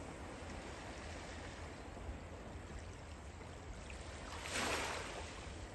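Small sea waves lapping at the shore in a steady wash, with one louder swell of surf about four and a half seconds in.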